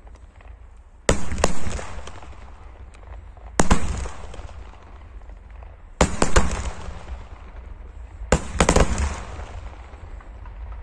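Aerial fireworks shells bursting: sharp bangs every two to three seconds, mostly in close pairs, each followed by a long rolling echo that fades out.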